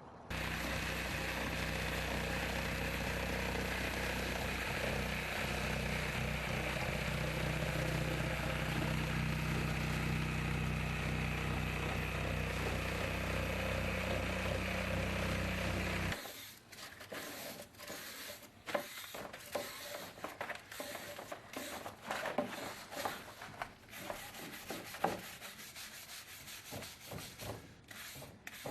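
An electric motor starts abruptly and runs at a steady pitch for about sixteen seconds, then cuts off. It is followed by irregular scraping and rubbing strokes on a hard surface.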